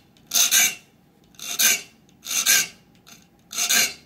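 Three-cornered saw file sharpening the very small 22-PPI teeth of a new saw. Four short rasping strokes, about one a second, each touching up one gullet's existing bevel.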